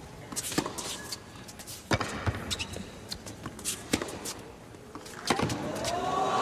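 Tennis racquet strokes in a baseline rally: sharp pops of the ball coming off the strings about every two seconds, some with a quick second knock from the ball bouncing on the court. Near the end, crowd noise swells up as the point ends.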